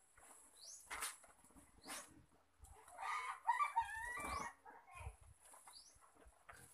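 Soapy clothes being scrubbed, lifted and splashed by hand in a basin of water. A rooster crows about three seconds in, the loudest sound. A short, high, rising chirp repeats about every second and a half.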